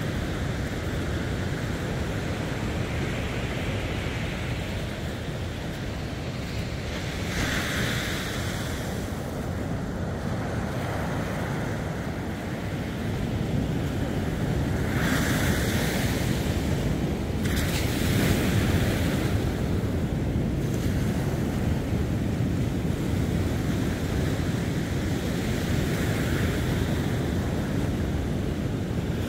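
Ocean surf washing onto a sandy beach, a continuous rush of waves that swells and fades and grows louder in the second half, with wind buffeting the microphone.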